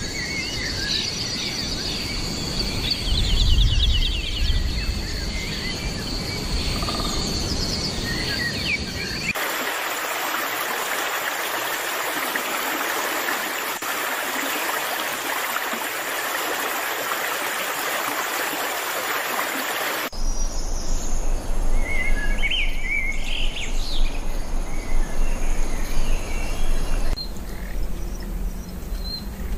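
Edited nature soundscape in three sections. First, birds chirp over a steady high-pitched tone. About nine seconds in, it cuts to the even rush of a stream. Around twenty seconds in, it cuts back to scattered bird chirps.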